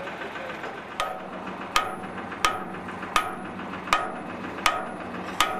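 Hammer striking the metal of a wood and cotton chopping machine seven times, an even blow about every 0.7 seconds, each with a short metallic ring.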